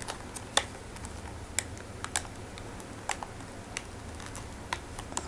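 Hard plastic earphone packaging being handled and pried at while trying to open it: scattered sharp plastic clicks and taps, about seven at irregular gaps, over a faint low hum.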